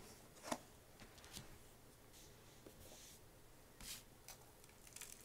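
A metal pipe-tobacco tin being opened and handled: a sharp click about half a second in as the lid comes off, then faint rustles and scrapes of the tin and its loose tobacco.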